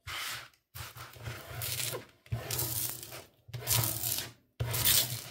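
Hands rubbing over the plastic film on a diamond-painting canvas in about five sweeping strokes, roughly one a second, smoothing out the creases.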